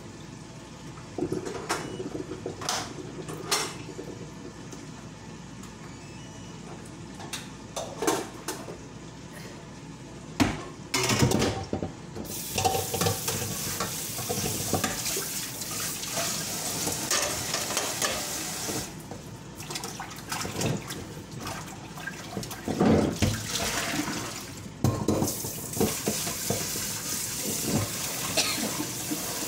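Dishes and utensils clinking and knocking at a kitchen sink, then a tap running, with water splashing and more clatter. The water stops briefly twice.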